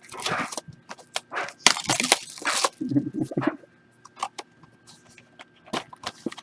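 Trading-card packs being handled: crinkling and tearing of pack wrappers in the first half, then light clicks and taps of cards being handled.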